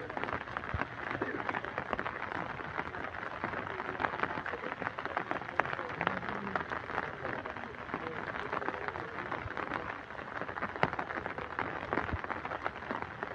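Crackly outdoor field noise full of small clicks and rustles, with faint indistinct voices of people in the background.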